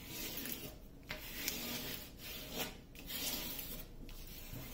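A hand and a wooden craft stick rubbing over the plastic release film of a diamond-painting canvas to smooth it flat. The rubbing comes as a series of strokes, each about a second long, with brief pauses between them.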